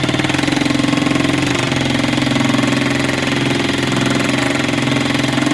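Impact gun hammering continuously as it drives the bolt of a homemade rivnut tool, drawing the threaded end of the rivnut toward its collar to crimp it into the sheet metal.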